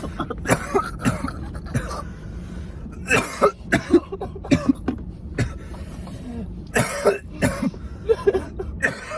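A man coughing hard, fit after fit, in short harsh bursts with some throat clearing, after a long vape hit held until the device blinked (a 'blinker').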